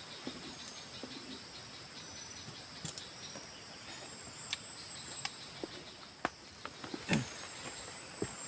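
Steady high-pitched chorus of forest insects, with scattered small clicks and knocks, one louder knock about seven seconds in.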